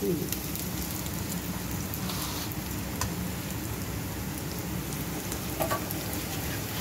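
Thin-cut carrot strips sizzling steadily in hot oil in a frying pan, being fried to soften, with a few light clicks of a metal slotted spoon stirring them.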